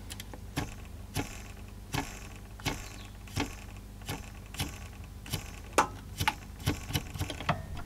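Irregular light clicks and ticks, about one to two a second, from the plastic tray loading mechanism of a Philips CDM-4 CD drive as its loading motor and belt pulley are handled, over a faint steady low hum.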